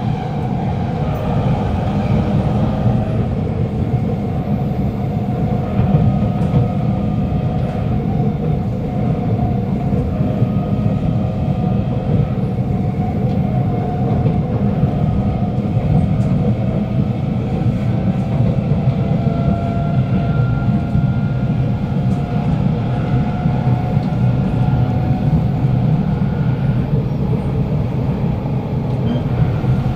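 Kawasaki Nippon Sharyo C751B metro train heard from inside the carriage while running: a steady rumble of wheels and running gear with a faint traction-motor whine, from a car with a strong motor sound. The whine's pitch drifts slightly upward midway.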